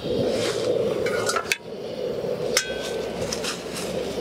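Metal clinks and rings from the Coleman 4-in-1 cooker's chrome wire pot-support ring being handled and set into the grill bowl: a quick cluster of clinks about a second in and one sharper ringing strike a little later, over a steady rushing noise.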